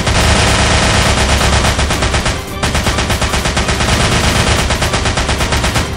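Machine-gun fire sound effect dubbed over toy-gun play: continuous rapid shots, with a brief pause about two and a half seconds in.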